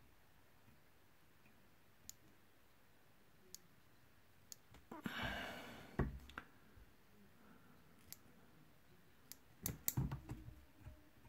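Small fine-pointed scissors snipping loose dubbing fibres off a tied nymph: faint, scattered sharp clicks, with a brief hiss about five seconds in and a quicker cluster of snips near the end.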